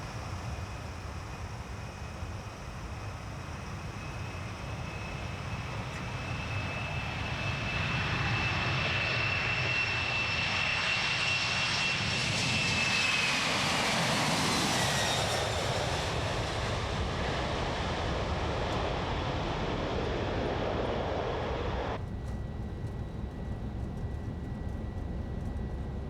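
Boeing 767-300ER jet engines at takeoff power during the takeoff roll: a steady rumble that grows louder, with a high whine that drops in pitch about halfway through. About 22 seconds in the sound changes abruptly to a duller rumble.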